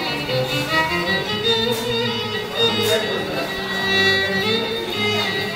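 A violin bowed solo, playing a melody of held notes that step from one pitch to the next without a break.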